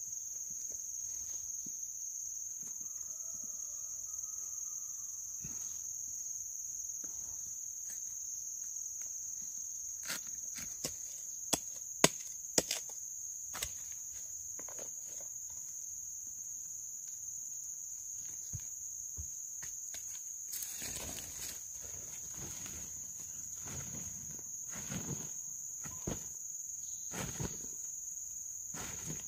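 Steady high-pitched insect chorus throughout. A few sharp clicks and knocks stand out about halfway through, the loudest sounds here, followed by a brief rustle and some dull thumps near the end.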